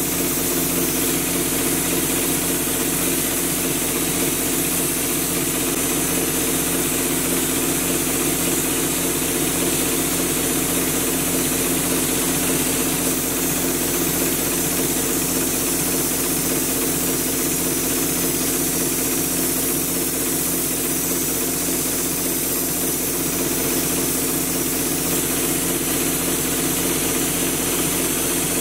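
Air compressor running steadily to supply a drywall texture hopper gun, with a steady hiss of air.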